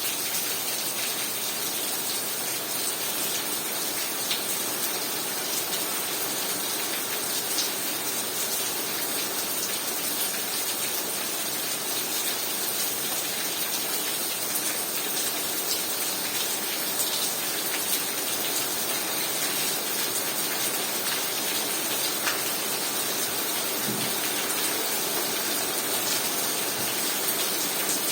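Heavy rain falling steadily, an even hiss of rain on surfaces with scattered sharper drop ticks.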